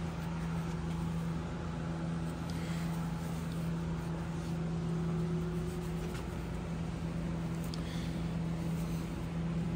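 Steady low hum of running shop equipment, with a few faint brief rubs of a gloved hand wiping excess marine sealant from around a new plastic thru-hull fitting on the hull.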